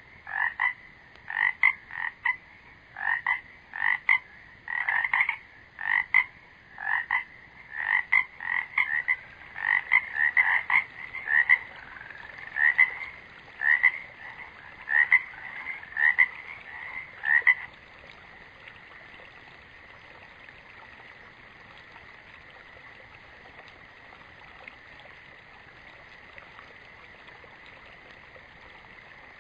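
Frogs croaking in short repeated calls, one or two a second, that stop about 17 seconds in, leaving only a faint steady high hum.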